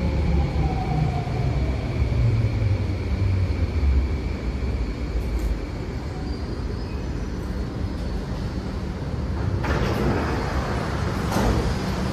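Singapore MRT train running, heard from inside the carriage: a steady low rumble with faint whining tones, and two sharp rattles near the end.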